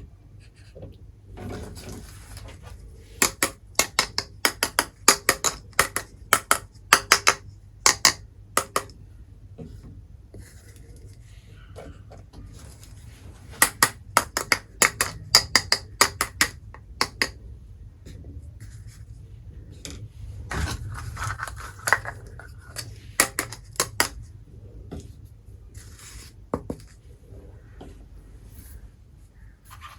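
Miniature toy kitchen pieces being handled, giving clusters of sharp clicks and taps as small utensils and dishes knock together and are set down, with a brief scrape.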